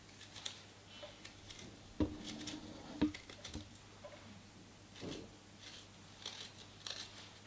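Metal spoon scraping the skin off a piece of fresh ginger root: faint, irregular scratching strokes, with a couple of soft knocks about two and three seconds in.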